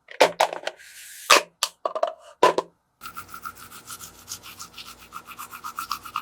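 A few sharp clicks and knocks of small hard objects, then a fast, even rubbing or scraping of about eight strokes a second.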